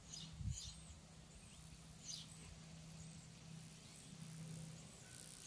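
Quiet outdoor pasture ambience: a faint steady low hum, with a few short, faint high chirps and a soft thump near the start.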